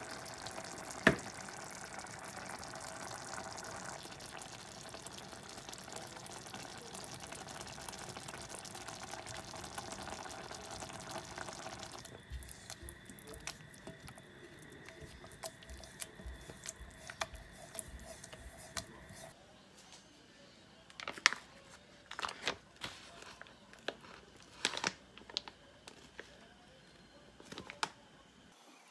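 Pot of ragu sauce simmering on the stove, bubbling and spattering as it reduces. About two-thirds of the way in, that gives way to a series of sharp rustles and clicks as paper packaging is handled.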